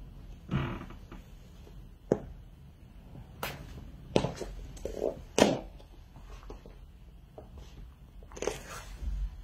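A black patent stiletto pump pressing down on and flattening a soft white squishy ball on a laminate floor: a string of irregular squeaks and squishes from the ball, with several sharp clicks of the heel and sole, the loudest about five and a half seconds in.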